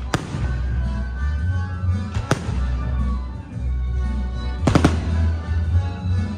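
Aerial firework shells bursting, four sharp bangs: one at the start, one a little over two seconds in, then two in quick succession near the end. Music with a heavy bass plays under them.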